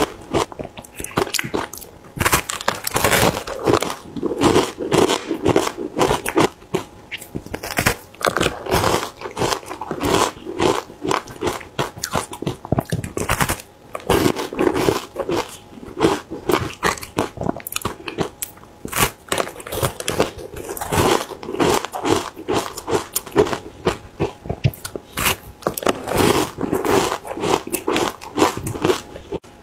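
Close-miked biting and chewing of frozen matcha ice chunks: a rapid, continuous run of crunches and cracks as the ice breaks between the teeth.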